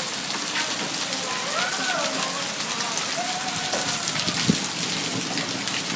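Hail pelting down steadily, a dense hiss full of sharp pattering clicks as the stones strike the ground and hard surfaces.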